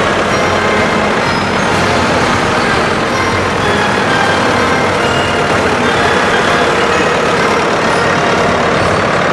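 Farm tractor engines running steadily as the tractors drive past close by.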